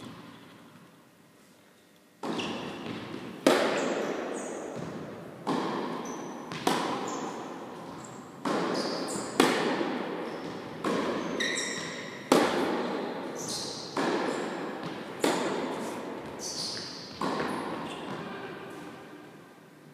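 Tennis ball being struck with rackets and bouncing on an indoor court, a sharp pop roughly every one to two seconds, some hits louder than others, each one echoing in the large hall.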